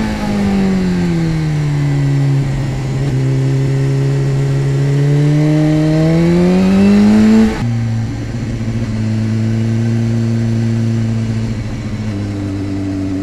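BMW S1000RR inline-four sportbike engine heard from onboard while riding. The revs fall over the first couple of seconds, hold steady, then climb again. About seven and a half seconds in they drop suddenly at a gear change and settle into a steady cruise.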